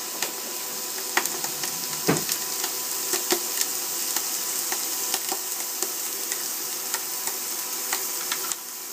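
Bacon sizzling and crackling in a metal frying pan on an induction cooktop, a steady hiss with many small pops of spitting fat and one louder pop about two seconds in.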